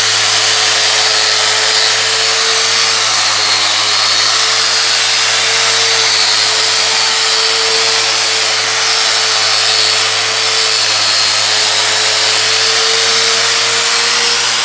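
Hand-held electric angle grinder running steadily with a 100-grit dry resin diamond polishing pad, grinding a marble floor dry: a constant motor whine over an even grinding noise.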